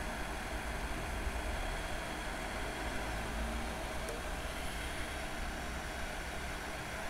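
Steady, even airy hiss of a hot air rework gun's blower on low airflow, blowing hot air onto a circuit board to melt and reflow solder paste.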